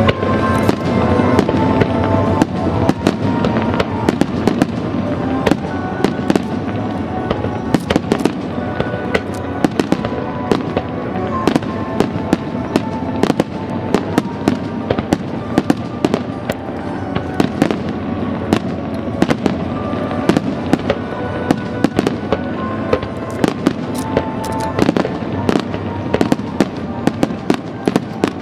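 Fireworks bursting and crackling in rapid, dense succession over music played for the show.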